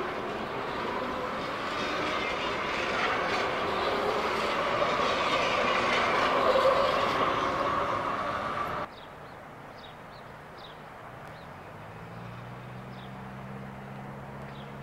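Calgary C-Train Siemens-Duewag U2 light rail cars running past the platform: wheel and running noise with a steady whine, growing louder, then cut off abruptly about nine seconds in. After that comes quieter open-air sound with a few short high chirps, and from about twelve seconds a low steady hum as another light rail train approaches.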